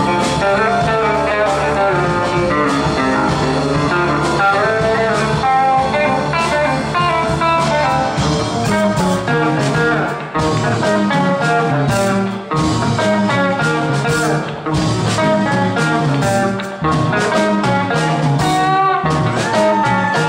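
Live blues-rock band playing: electric guitar lines over bass and drums, with a rising bent guitar note near the end.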